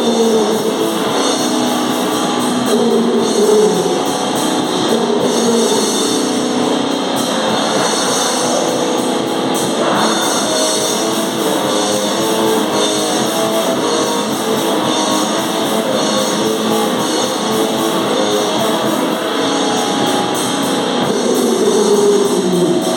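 Live noise-metal band playing an instrumental passage: distorted electric guitar and drums, loud and steady.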